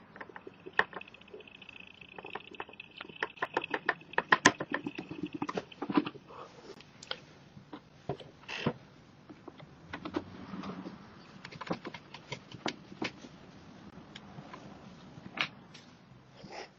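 Hands handling the plastic panels and rubber hose fittings at a motorcycle's front end, making irregular clicks and light knocks. A faint high steady tone sounds for the first few seconds.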